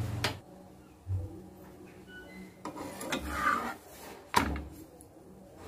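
A thin raw dough sheet being handled and flipped by hand on a hot flat pan: a rubbing scrape of the sheet over the pan, and a few light knocks against it, the loudest about four and a half seconds in.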